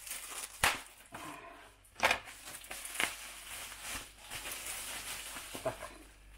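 Handling of a parcel's contents: rustling packaging with three sharp knocks in the first three seconds, as objects are picked up and set down.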